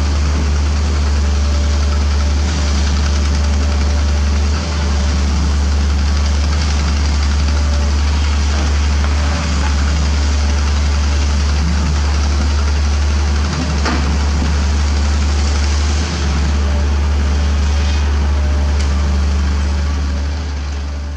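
Komatsu PC200 hydraulic excavator's diesel engine running steadily at working speed as it digs and swings, a constant low drone with a single sharp knock about two-thirds of the way through. The sound fades out at the very end.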